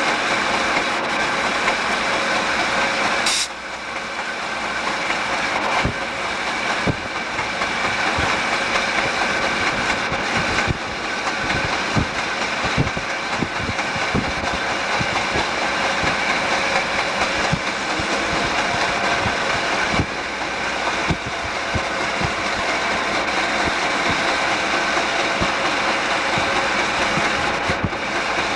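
Southern Pacific EMD GP9 diesel locomotives running at about 25 mph: two-stroke diesel engine drone with wheels clattering and knocking on the rails, heard from a car pacing alongside. The train has a flat locomotive wheel, whose thump the uploader says can be heard.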